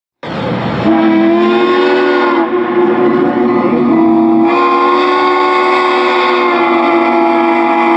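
Steam locomotive chime whistle sounding a chord of several notes in two long blasts, the second starting about four and a half seconds in.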